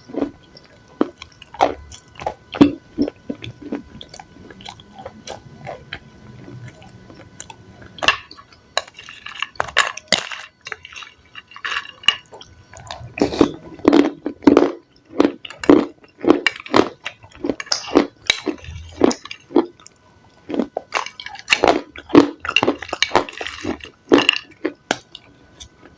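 Close-miked chewing and biting of crunchy raw salad, crisp crunches coming in quick runs, with scattered sharp clicks between them.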